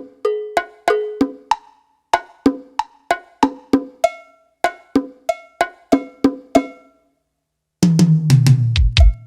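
Drum and percussion samples triggered on an Avatar PD705 electronic percussion pad: a steady pattern of sharp pitched drum hits, about three a second. After a short pause near the end comes a quick run of deep hits that fall in pitch.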